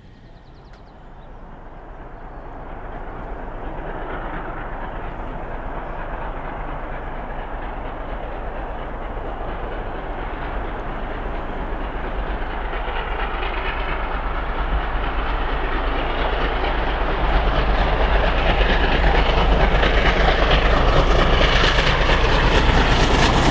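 LNER A3 Pacific 60103 Flying Scotsman approaching at about 60 mph under steam. The rapid exhaust and the running noise of the train grow steadily louder, reaching full strength near the end.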